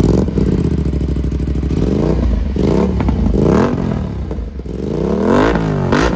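Aprilia RS 457's 457 cc parallel-twin engine running through an Akrapovič superbike slip-on silencer held by hand on the header pipe. It catches and settles into a loud idle, then is blipped about five times, the revs rising and falling quickly each time.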